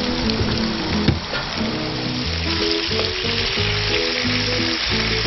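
Flour-dusted whole whiting sizzling as they fry in hot oil in a frying pan, with a sharp click about a second in. Background music plays underneath.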